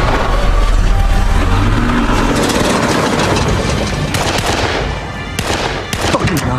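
War-film battle sound mix: gunfire and shells striking a tank's armour over a deep rumble, with dramatic music beneath. A run of sharp cracks comes near the end.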